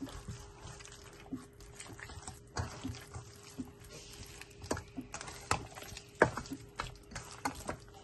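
Hand kneading raw chicken pieces in spice marinade in a steel bowl: irregular wet squelches and slaps. A faint steady hum runs underneath.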